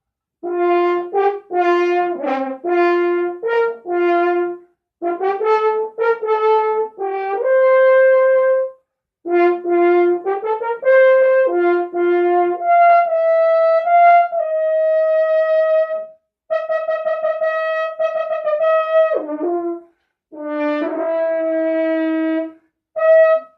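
Opus USA brass horn played solo as a first warm-up of the day. Phrases of short notes and slurs move among a few pitches, then longer held notes follow, one dropping in pitch near the end, with brief breaths between phrases.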